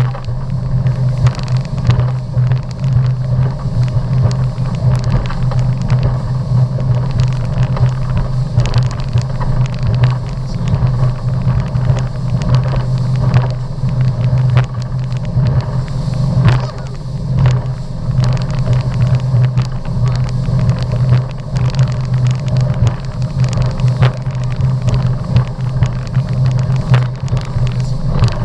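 Motorboat under way at speed, its engine giving a steady low drone, with many short knocks and splashes over it.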